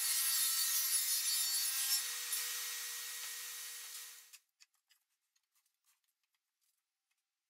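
SawStop table saw cutting plywood: a loud rushing cut over the blade's steady hum, which stops abruptly a little over four seconds in. A few faint light knocks follow.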